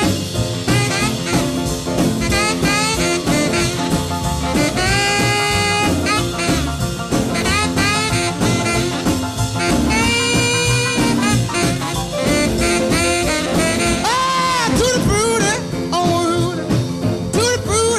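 Upbeat 1950s rock and roll music in an instrumental break with no singing, led by saxophone over a steady beat.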